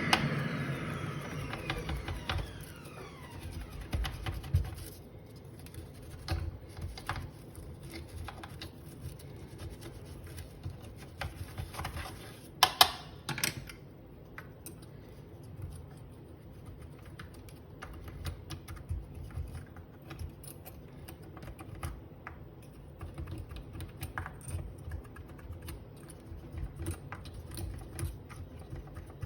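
Small metal pick scraping and clicking irregularly against the burr of a Breville Smart coffee grinder, loosening old, hardened coffee grounds from between its blades, with a sharper burst of clicks near the middle. In the first few seconds a motor whine falls away as it spins down.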